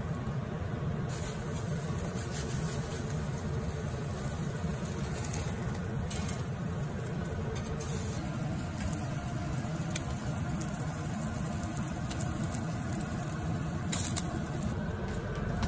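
Butane gas grill burner running with a steady rushing flame, and a few faint crackles from chicken wings cooking on the rack.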